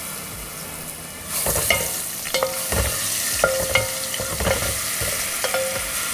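Ginger, garlic and pepper paste sizzling in hot coconut oil while a spatula stirs it. The spatula clinks and scrapes against the pan several times.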